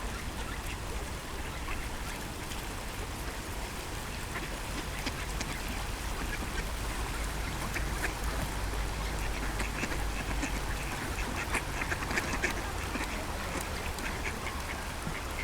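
A flock of mallards quacking over a steady rush of river water, with the quacks thickening in the middle.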